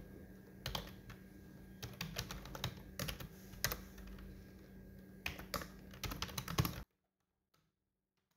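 Typing on a computer keyboard: quick, uneven keystrokes that cut off suddenly about seven seconds in.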